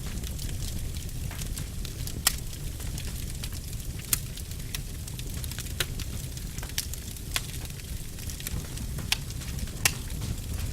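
Wood fire burning in a fireplace: a steady low rumble with sharp crackles and pops at uneven intervals, about one a second. The loudest pops come about two seconds in, about four seconds in and near the end.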